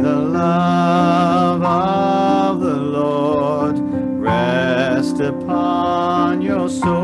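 A slow hymn sung by a single voice over sustained piano chords, with a short break between phrases about four seconds in.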